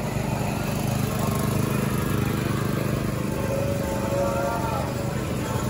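Go-kart engines running steadily as the karts circle the track, a constant low drone with a fainter higher tone joining past the middle.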